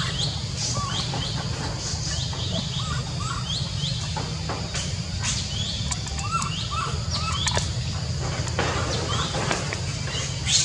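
Short high chirping calls repeating several times a second, over a steady low rumble, with a few sharp knocks near the middle.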